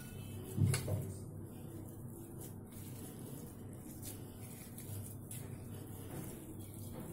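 Boiled potatoes being squeezed and mashed by hand in a steel bowl: faint soft handling sounds, with two dull knocks against the bowl about a second in.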